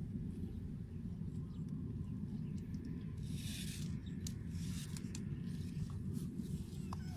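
Hands rustling through grass and plastic netting beside a pipe fish trap, with a short burst of rustling about three seconds in and a few light clicks, over a steady low rumble.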